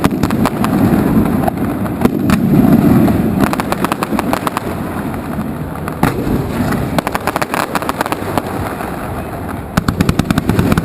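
Fireworks display going off: a continuous low rumble of shell bursts with many sharp bangs and crackles, in quick rapid-fire runs about seven seconds in and again near the end.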